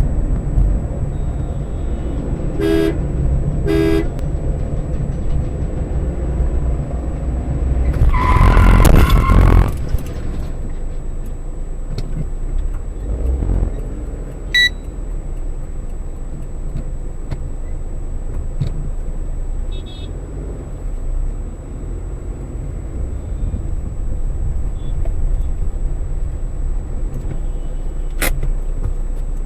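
Steady engine and road rumble from a moving Maruti Suzuki Alto K10, with two short car-horn toots about three and four seconds in. About eight seconds in, a loud burst lasts roughly two seconds.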